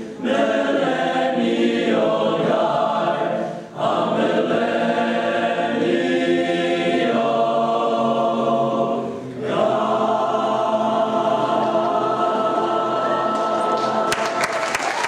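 High-school male choir singing in phrases broken twice by brief pauses, then holding a long final chord. Applause breaks out near the end as the piece finishes.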